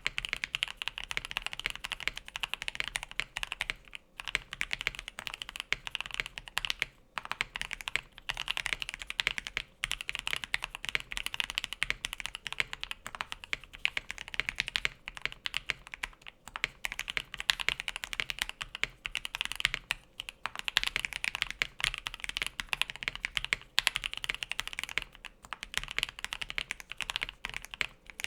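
KBD67 Lite 65% mechanical keyboard (plastic case, PC plate) fitted with ePBT black-on-white keycaps, being typed on in a fast, continuous run of deep, thocky keystrokes, with a few brief pauses.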